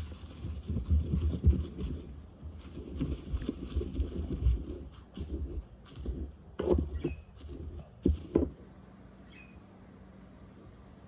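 Handling noise: irregular rubbing, scraping and knocking, with a few sharper knocks near the end, stopping about eight and a half seconds in.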